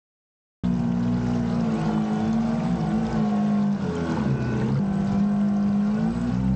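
Radio-controlled model boat's motor running steadily on the water, starting abruptly about half a second in. Its pitch drops and climbs back around four to five seconds in, as with a throttle change.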